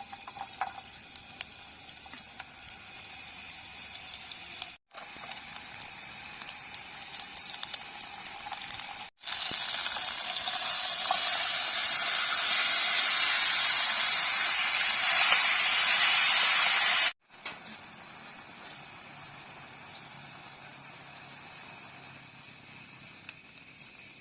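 Rain falling, heard in separate shots: first a lighter patter with scattered ticks of drops. About nine seconds in, heavy rain comes as a loud, steady hiss for around eight seconds. It then drops back to a lighter patter, with a few faint chirps.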